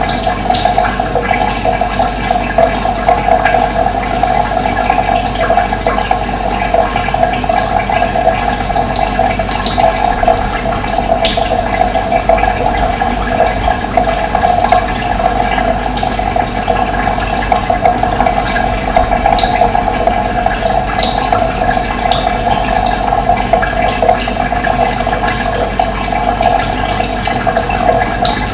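Steadily running water with an even, unbroken rush. Short, scattered bird chirps come through it now and then.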